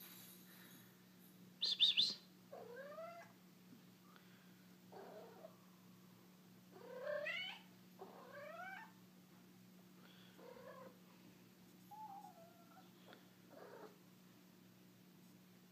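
Female cat in heat yowling: a short high-pitched call about two seconds in, then a string of drawn-out calls rising in pitch, one every second or two, the loud mating calls of a cat in estrus.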